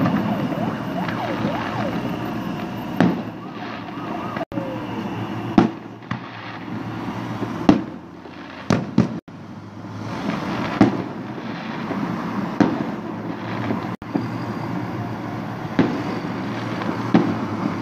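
Fireworks salute going off: irregular sharp bangs every one to two seconds over a steady background din, with a few brief dropouts in the recording.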